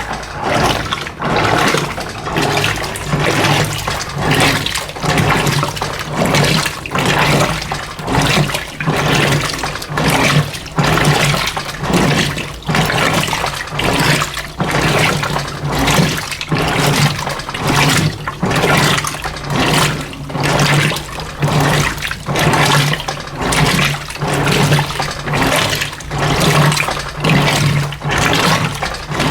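Electrolux LF90 washing machine agitating a load of rugs in a low water level: water churning and sloshing in a regular, repeating rhythm, over the steady hum of the motor.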